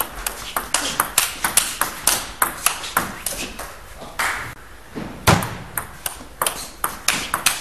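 Table tennis rally: the celluloid ball clicking sharply off the bats and the table in quick succession, with a brief pause a little past the middle before the hitting resumes.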